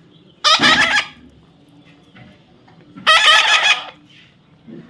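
Pet parrot giving two harsh, loud squawks, the first about half a second in and the second about three seconds in, each lasting under a second.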